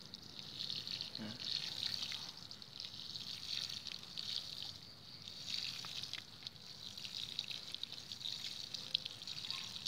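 Water sprinkling from a plastic watering can's rose onto wet soil and compost: a steady, even hiss of many fine streams.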